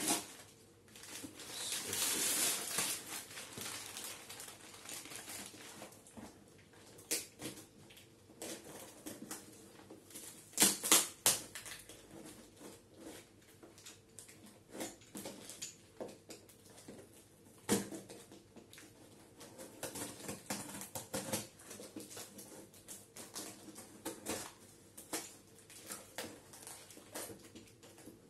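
Plastic courier mailer rustling and crinkling as it is pulled open, then scattered ticks, scrapes and snaps as a knife cuts and picks at packing tape on a cardboard box. The loudest are a few sharp snaps about a third of the way through and one more a little past the middle.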